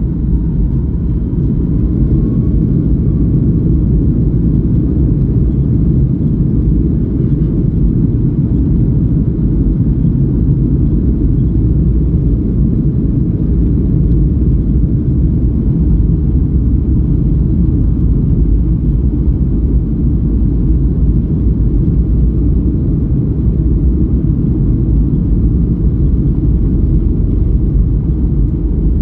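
Steady, loud, low rumble of an airliner's cabin noise, engines and rushing air heard from a passenger seat, with no change in pitch.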